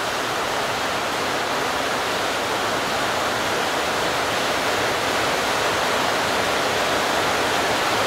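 Heavy rain coming down hard, a steady even hiss.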